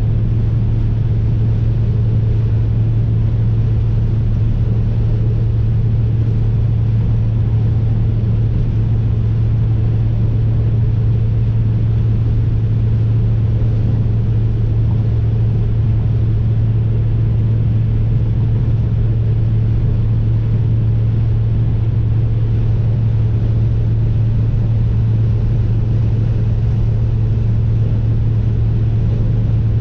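Inside the cabin of a 1990 BMW E30 M3 cruising at highway speed: the S14 four-cylinder engine drones at a steady pitch under road and wind noise.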